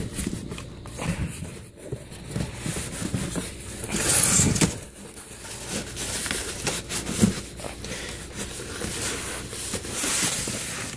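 Cardboard box and packing material being handled during an unboxing: irregular rustling and scraping, with the loudest rustle about four seconds in.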